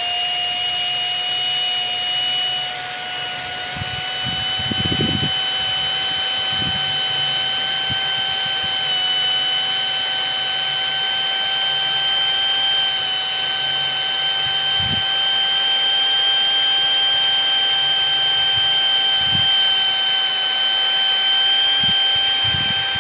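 Bare brushed DC motor of a Bosch GSR 12-2 cordless screwdriver running unloaded at high speed off its trigger switch, a steady high whine. It is a bench test for overheating and sparking, which the motor passes in good working order.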